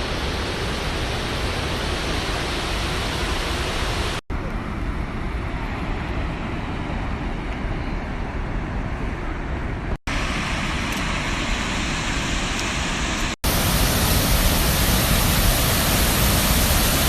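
Geyser erupting: a steady rushing hiss of water and steam, mixed with wind on the microphone. It comes in several short cuts separated by brief dropouts, and the last cut is louder and brighter.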